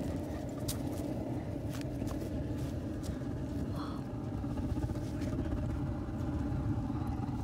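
Smudge-pot orchard heater burning waste motor oil with a steady low rumble from the burner and stack, running hot. A few faint ticks sit on top.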